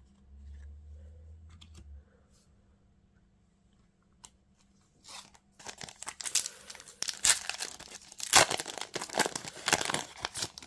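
A foil trading-card booster pack being torn open and its wrapper crinkled, a loud rustling and crackling that starts about five seconds in. A faint low hum comes first, for about two seconds.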